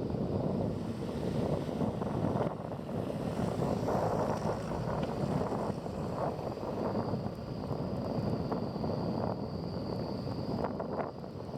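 Wind buffeting a motorcycle-mounted microphone while riding, gusting unevenly over the low rumble of a scooter on the move. A faint steady high whine comes in about seven seconds in.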